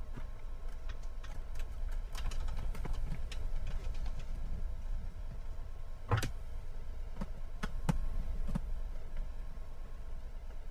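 Scattered small clicks and taps of hand wiring work: wire ends and a tool being worked into a solar charge controller's screw terminals. One sharper knock comes about six seconds in, with a few more single clicks after it, over a steady low hum.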